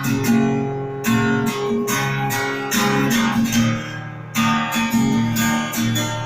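Acoustic guitar strumming chords in a steady rhythm, about two strokes a second, with no singing.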